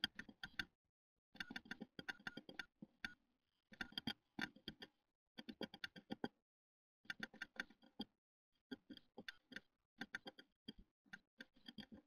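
A great tit pecking at the wood inside its nest box: repeated bursts of quick, sharp taps with short pauses between them.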